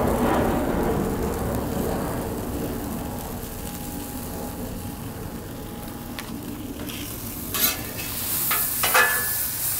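Chunks of alligator meat sizzling in olive oil on a Blackstone flat-top griddle, with a low rumble fading out over the first few seconds. Near the end a metal spatula scrapes and taps on the griddle twice.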